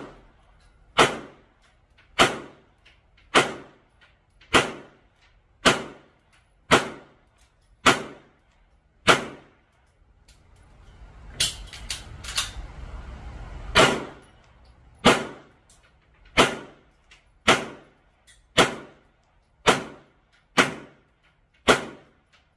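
Pistol shots fired at a steady pace, about one a second: eight shots, then a pause of about five seconds in the middle for the magazine reload with a few fainter pops, then eight more at the same pace. The shots are the end of a 10-round string and the start of the second 10-round string.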